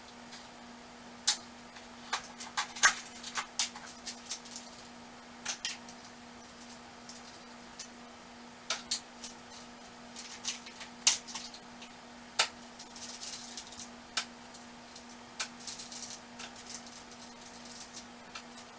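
Metal hand tools clinking and clattering as they are picked up, handled and set down during sorting, in irregular sharp clinks with occasional brief rummaging, over a faint steady hum.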